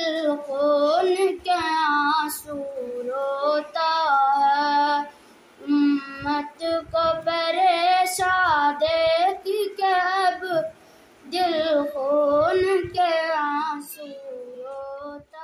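A boy singing an Urdu nazm solo, in long wavering sung phrases with short breaks for breath. His voice trails off more quietly near the end.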